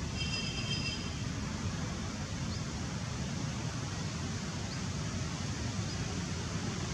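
Steady outdoor background rumble and hiss, heaviest in the low end, like wind on the microphone. A brief high-pitched trill sounds for about a second at the start.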